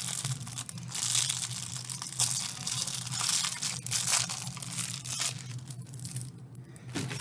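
Plastic packaging crinkling and rustling in the hands as small squishy fidget toys are unwrapped and handled, in irregular crackly bursts that die down about six seconds in.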